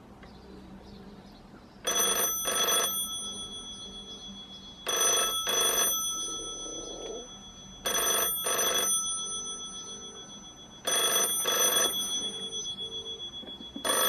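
Cream 1970s Dawn rotary dial telephone, model TSR 8008A, ringing on an incoming call: double rings about three seconds apart, four pairs with a fifth starting at the end, the ringing tone hanging on briefly after each pair. The ringer is working.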